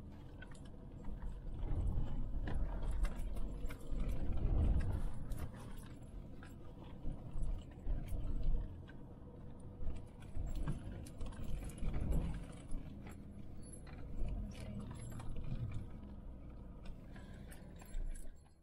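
A car driving slowly over a rough, rutted dirt and gravel track, heard from inside the cabin: a steady rumble of engine and tyres that swells and eases, with many small rattles and clicks from the jolting cabin.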